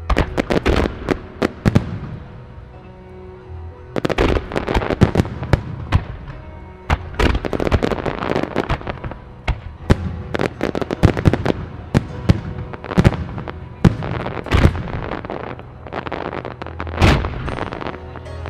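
A starmine: aerial firework shells fired in rapid succession, bursting in dense volleys of booms and crackles. There is a short lull about two seconds in, then the bursts come thick and fast again.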